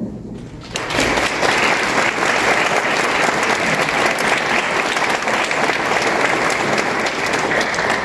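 Audience applauding, breaking out about a second in and keeping up steadily.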